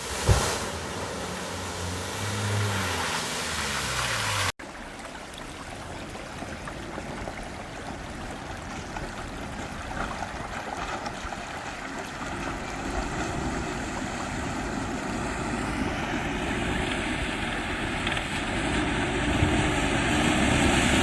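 Off-road vehicle engine revving up and down, with a sharp knock shortly after the start. About four and a half seconds in the sound cuts abruptly to a rushing noise with the engine faintly beneath it, growing louder toward the end.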